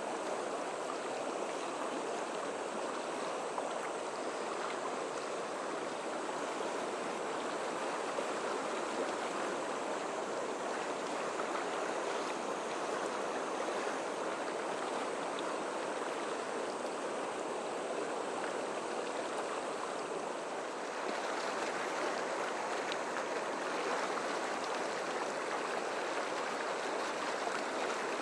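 Fast-flowing river rushing through whitewater rapids: a steady wash of moving water that grows a little louder about three-quarters of the way through.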